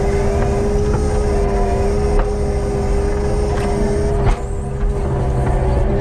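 Skid steer's diesel engine running under load with a steady hydraulic whine as the log grapple is worked, with a few light knocks and a sharper clunk about four seconds in.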